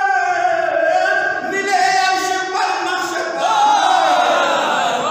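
A man's voice chanting verses of poetry in a sung, melodic style through microphones, holding long notes that slide between pitches.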